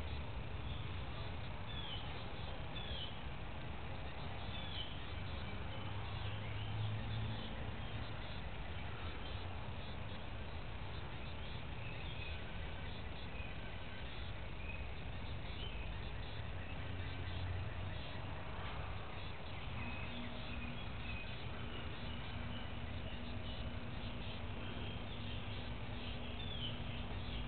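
Outdoor background noise: a steady low rumble with scattered short bird chirps. A faint steady hum joins about two-thirds of the way in.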